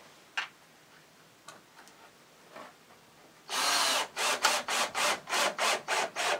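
Power drill driving a screw into pallet wood. It runs in one steady half-second burst about three and a half seconds in, then in short trigger pulses, about four a second.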